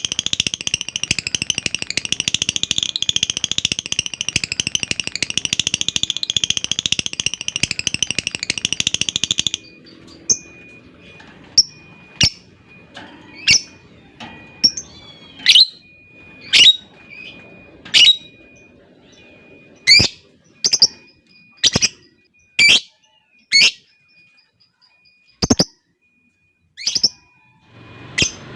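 Lovebird giving a long, rapid chattering trill (ngekek) for about nine and a half seconds, then breaking into single sharp chirps about a second apart.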